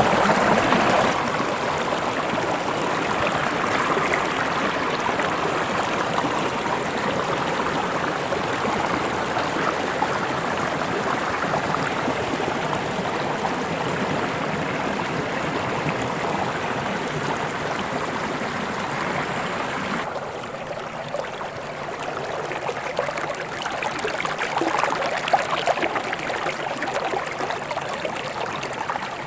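Small forest stream running over stones, a steady rush of water. About two-thirds of the way through it suddenly turns softer and duller.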